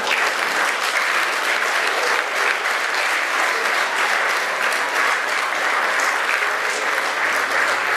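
Theatre audience applauding steadily: many hands clapping at once.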